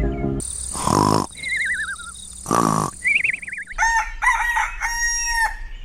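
A rooster crowing, two loud crows with warbling, wavering tones between them, then a run of shorter clucking calls.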